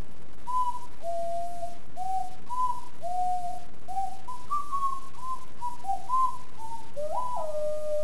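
Extended-range sweet potato ocarina from Songbird Ocarinas playing a melody of clear, pure notes, ending with a quick slide up and down into a long held note.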